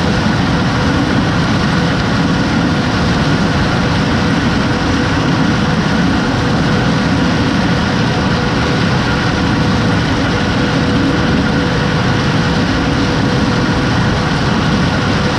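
Heavy farm machinery running steadily: a deep engine drone with a constant whine over it, unchanging throughout.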